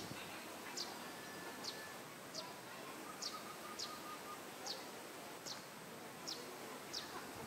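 Outdoor ambience with a short, high chirp that falls in pitch, repeating evenly about every three-quarters of a second, over a faint steady background hiss.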